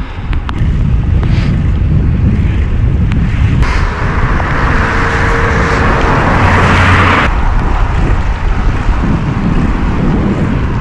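Wind buffeting the microphone of a bike-mounted action camera while riding on a rain-soaked road, a steady rumble. From about four to seven seconds in, a loud hiss of spray from a car passing on the wet road rises over it and cuts off.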